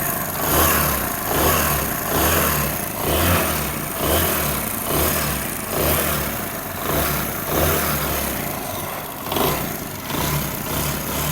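Motorcycle engine running with extra mechanical noise from inside the engine, swelling and fading about once a second. The noise is of the kind the mechanic says typically comes from a worn timing chain or tensioner rod.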